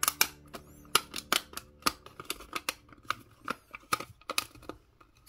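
Quick, irregular clicks and light taps of small tools and parts being handled during work on a cassette Walkman, several a second.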